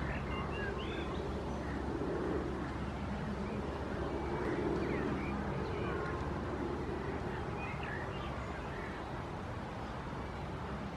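Outdoor ambience: a steady low rumble with scattered short bird chirps.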